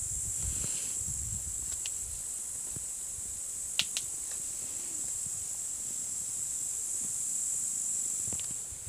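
Steady high-pitched chirring of insects such as crickets, with two sharp clicks close together about four seconds in.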